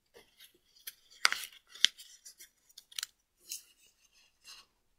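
Paper crinkling and crackling between the fingers as a small origami fold is pushed in and creased: scattered soft rustles and crisp crackles, with two sharper ones a little over a second in and just before two seconds.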